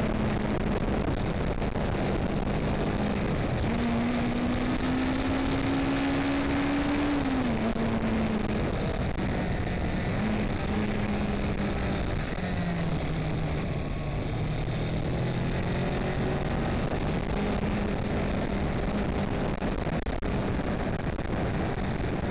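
Electric car driving: steady road and wind noise with a low hum that rises and falls in pitch as the car speeds up and slows.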